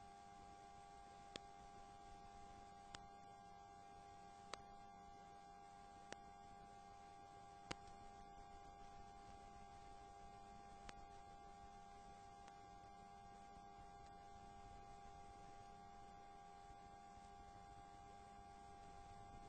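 Near silence with a faint steady electrical hum and a handful of faint clicks, about one every second and a half during the first half.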